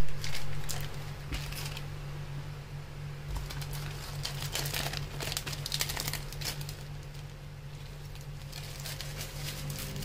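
Plastic wrapping crinkling and rustling in irregular bursts as sliced cheese is handled and laid onto bread, over a steady low hum. A brief loud sound comes right at the start.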